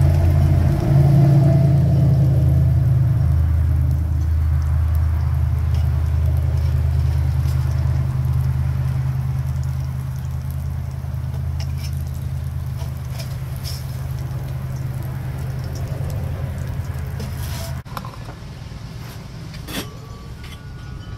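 A steady low engine-like rumble that drops away abruptly about 18 seconds in, with a few light metallic clicks from a metal spatula at the grill.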